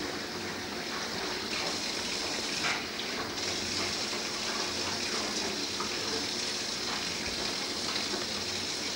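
Kitchen sink tap running in a steady stream of water, briefly louder about three seconds in.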